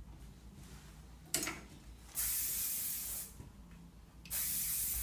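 Aerosol hairspray sprayed in two bursts of about a second each, setting the finished curls: a sharp click a little over a second in, a hissing burst about two seconds in, and a second burst near the end.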